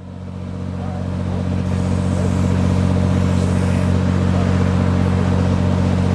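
An engine running at a steady speed, a low even drone that swells up over the first second or two and then holds steady.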